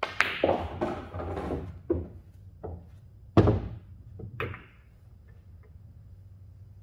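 Cue tip striking the cue ball, then pool balls rolling and knocking off each other and the cushions of a Diamond pool table. A heavy thunk about three and a half seconds in is the loudest sound, and a smaller knock follows about a second later.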